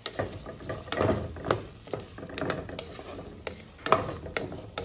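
Shallots and curry leaves sizzling as they fry in hot oil, stirred with a wooden spatula that knocks and scrapes irregularly against the pan.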